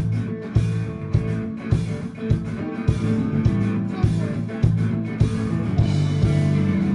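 Live pop-rock band playing an instrumental passage: electric guitars, bass and a steady drum beat, with no singing.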